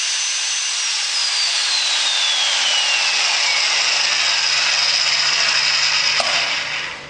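VV45 magnetic drill (mag-base drill) motor running loudly, with a high whine that slides down in pitch over a couple of seconds about a second in. Near the end there is a click and the drill's sound cuts away sharply.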